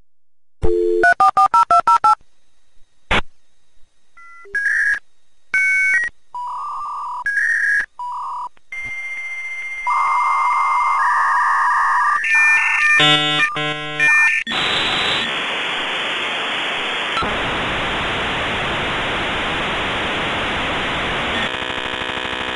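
56K dial-up modem connecting: a dial tone, a quick run of touch-tone dialing beeps, then the answering modem's steady tones and a stretch of chirps and warbles in the handshake. From about 14 seconds in, it settles into a loud, even hiss of noise as the two modems train.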